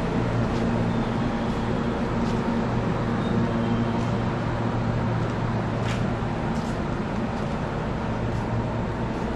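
JR West 227-series electric train standing at the platform, its onboard equipment humming steadily with several low steady tones. There is a brief click about six seconds in.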